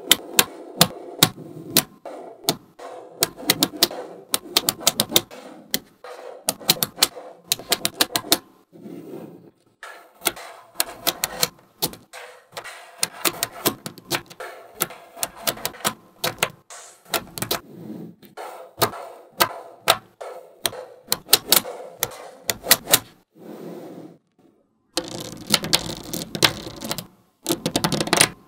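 Small magnetic balls clicking and snapping together one after another as they are placed onto a model, in quick irregular runs with short pauses. Near the end there is a denser stretch of rattling clicks.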